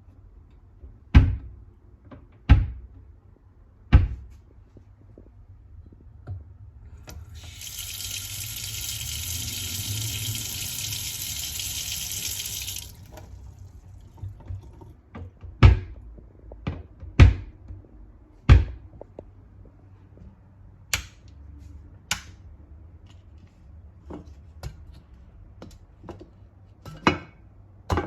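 Household sounds: three sharp knocks, then water running for about five seconds, then more knocks and lighter clicks.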